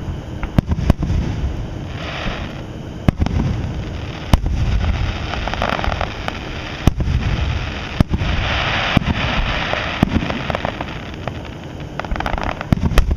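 Aerial fireworks shells bursting in the sky: sharp bangs every second or two, several followed by stretches of crackling, over a low rumble.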